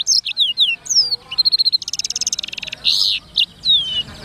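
Black-throated canary (blackthroat) singing a fast, varied song of quick downward-sliding whistles, a buzzy trill and harsh buzzy notes, breaking off near the end.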